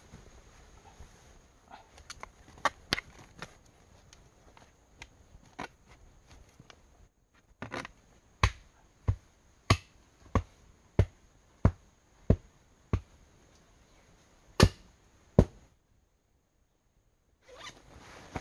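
A hand tool striking earth and rock in a steady run of sharp blows, about three every two seconds, after a few scattered knocks. A thin steady high tone sits underneath, and near the end comes a short rustle of clothing.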